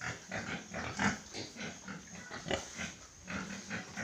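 Pigs grunting in a rapid, irregular run of short grunts and snuffles.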